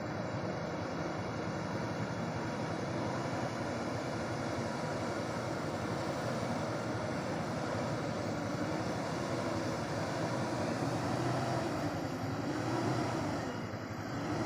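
Heavy diesel truck engine running under load, mixed with steady road noise; its pitch wavers up and down near the end.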